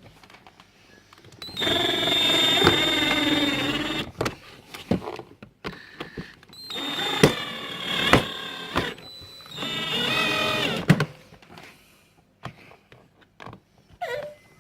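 Fisher-Price Laugh & Learn Crawl Around Car's electronic dashboard playing three short bursts of music and sung phrases, set off by its buttons. Sharp plastic clicks and knocks come between and during the bursts.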